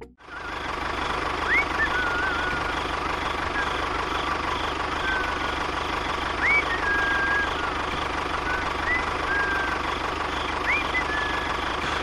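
An engine running steadily at idle with a fast, even knock. A few short rising chirps sound over it.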